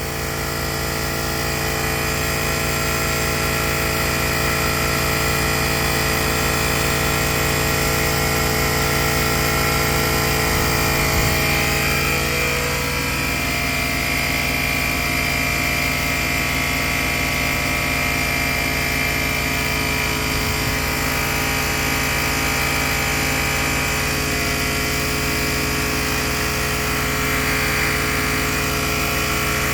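Battery-powered portable tyre inflator running steadily, its compressor pumping up a bike tyre from about 8.5 psi toward a set 28 psi. It is loud, with a fast even pulse under its tone, which shifts slightly about twelve seconds in.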